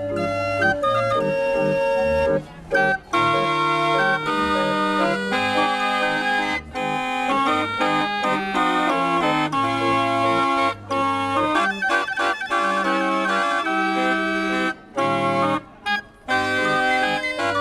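Hand-cranked 45-key Bruns trumpet barrel organ playing a lively medley, with bright pipe and trumpet tones in a quick melody. A few brief breaks fall between phrases.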